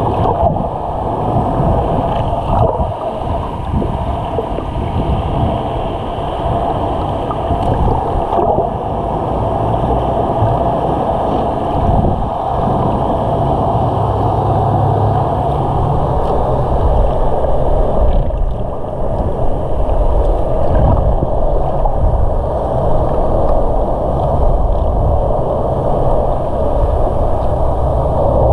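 Underwater sound through a submerged camera: a steady, muffled rush of water noise, heaviest in the low range, with a faint steady hum running through it.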